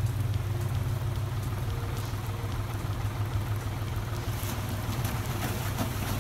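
Steady rush of river water flowing and splashing around a Poncelet waterwheel turning in the current, with a strong low rumble underneath.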